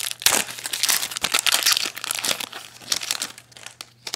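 Foil wrapper of a Topps Chrome baseball card pack crinkling as it is torn open and handled, with dense crackling that dies away about three seconds in, then a single click near the end.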